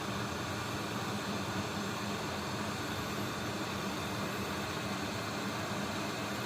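Hot air rework station blowing a steady hiss of air, with a low hum underneath, heating the button's solder joints to reflow the low-melt solder.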